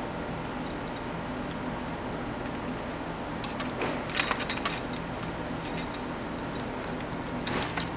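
Metal tools clinking on a bicycle's reflector bolt as a screwdriver turns the bolt and an adjustable wrench holds the nut: a quick cluster of clinks about four seconds in and a few more near the end, over a steady low hum.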